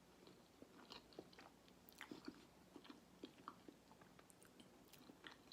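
Faint chewing and small mouth clicks of a person eating, irregular and close to the microphone.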